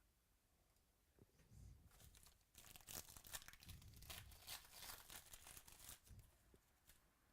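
Faint crinkling and tearing of card packaging being handled, a quick run of rustles and clicks from about two seconds in to about six seconds in.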